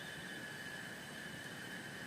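Heavy rain falling steadily on a tent and its plastic tarp, an even, unbroken hiss.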